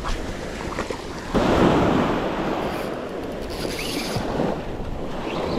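Small surf waves breaking and washing up the sand at the water's edge, with wind on the microphone; a louder wave breaks about a second and a half in and fades.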